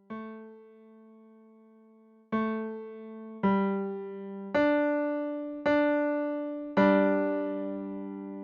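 A digital piano plays the tenor line of a choral song one held note at a time, slowly: a note just after the start, another a couple of seconds later, then notes about once a second, each dying away until the next strikes.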